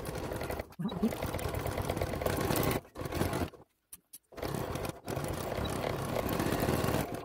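Elna Excellence 720 Pro sewing machine stitching through fabric in several runs, with short stops between them; the longest stop comes about three seconds in.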